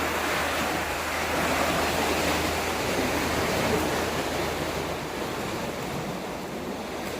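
Steady rush of water at a canal lock, as water is let through while the lock is opened for a boat to come down. A low steady hum runs underneath and stops about five seconds in.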